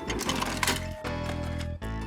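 Background children's music with a steady bass line, joined in the first second by a quick run of clicks and clatter.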